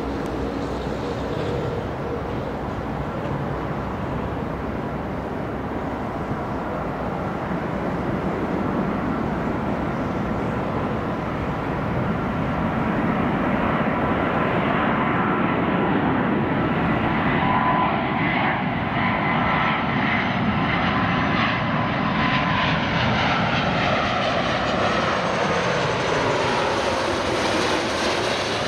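Airbus A330-300's Rolls-Royce Trent 700 turbofans on landing approach, a steady jet rumble with a whining tone that grows louder about halfway through as the airliner comes closer. In the last several seconds, as it passes low overhead, the sound peaks and its tones sweep in pitch.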